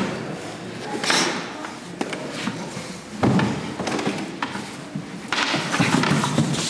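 Scuffling and thuds of two fighters grappling on a wooden floor, with a louder knock about three seconds in.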